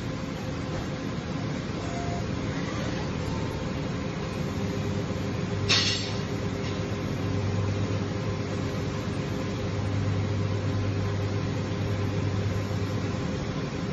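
DMG Mori NLX2000SY CNC lathe running, heard through its closed guard door: a steady machine hum and whir. There is a short sharp clack about six seconds in, after which a low hum grows stronger.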